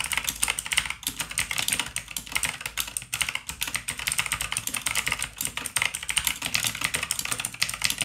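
Fast, continuous typing on an Armscool HK107 full-size mechanical keyboard with clicky blue (JWH) switches: a dense run of overlapping keystroke clicks.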